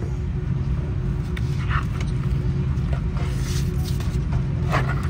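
Steady low drone of an Airbus A330-300 cabin, with a few brief rustles and taps as a paper safety card is handled and opened.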